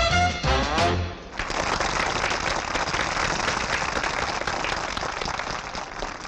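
A small swing dance band finishes its number with a last rising flourish about a second in, and an audience breaks into steady applause.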